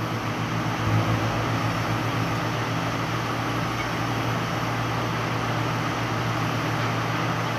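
Steady drone of diesel machinery running at a slipway, an even noise with a constant low hum and no change in speed.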